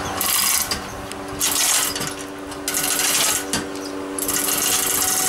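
Manual chain hoist being hauled by hand: the steel chain rattles and clinks through the block in about four spells of pulling, lifting a refrigeration compressor of around 95 kg.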